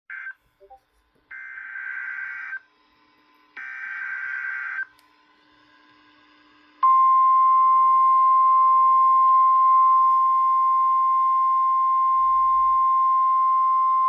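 NOAA Weather Radio Emergency Alert System signal for a severe thunderstorm warning: three short bursts of screechy SAME digital header data, the first cut short, then the steady single-pitch warning alarm tone starts about seven seconds in and holds loudly.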